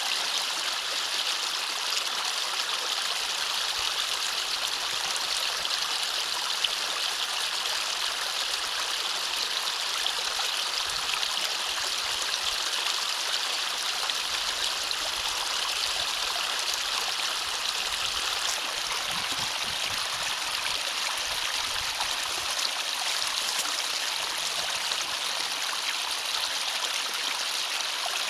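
Steady rush of water flowing through a drainage ditch at a culvert, with one brief click about seven seconds in.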